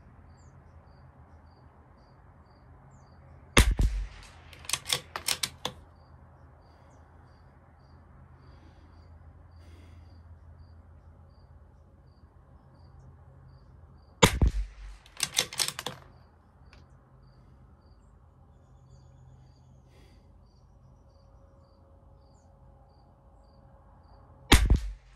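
Three shots from a Bergara B14R .22LR bolt-action rifle, about ten seconds apart. Each sharp crack is followed by a quick run of metallic clicks as the bolt is worked to eject the case and chamber the next round.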